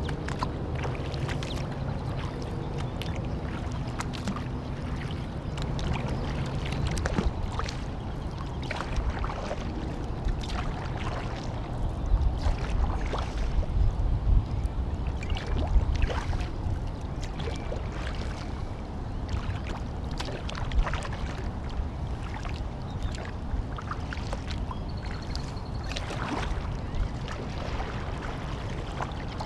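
A Horizon Hydra 14 sit-inside sea kayak being paddled: the paddle blades dip, splash and drip with each stroke, and water laps at the hull. A steady low hum fades out over the first several seconds, and a low rumble rises briefly around the middle.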